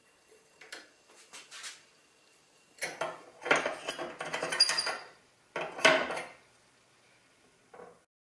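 Metal clattering and scraping as a slotted aluminium tube is fitted onto the steel grill bars of a camp-stove grate. A few light clicks come first, then two loud bouts of rattling from about three seconds in, and a small click near the end.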